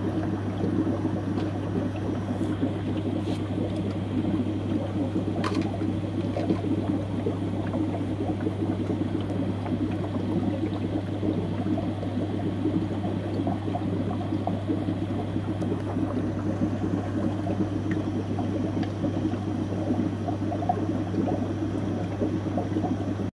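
Aquarium air stone bubbling steadily underwater, aerating a breeder box, over a constant low hum.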